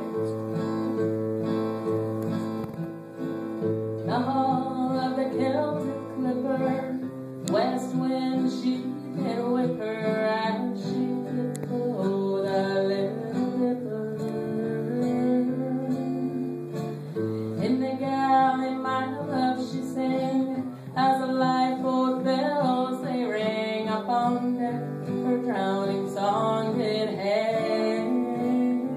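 Acoustic guitar strummed with a woman singing a Celtic-style folk song; the guitar plays alone at first and her voice comes in about four seconds in.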